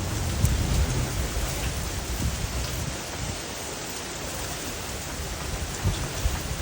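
Heavy rain falling steadily in a windy storm, with an uneven low rumble that swells in the first second and again near the end.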